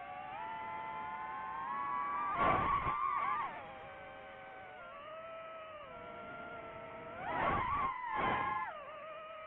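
DJI FPV drone's motors and propellers whining, the pitch sliding up and down with the throttle, with two loud surges: one about two and a half seconds in and one about seven and a half seconds in.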